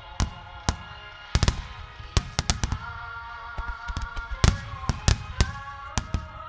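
Aerial firework shells bursting in quick, irregular succession, more than a dozen sharp bangs, over slow music with long held notes.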